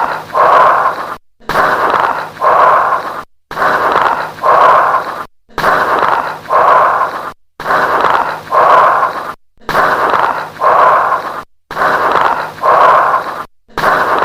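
Lung sounds through a stethoscope: bronchial breath sounds with late-inspiratory crackles. Breaths repeat about every two seconds, each an inspiration and an expiration of similar length with a short pause between.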